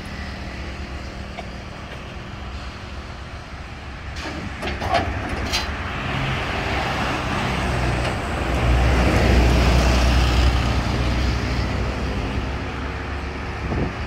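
An engine idling steadily while road traffic passes; one vehicle goes by loudly about halfway through, the sound swelling and then fading. A couple of sharp knocks come a little before that.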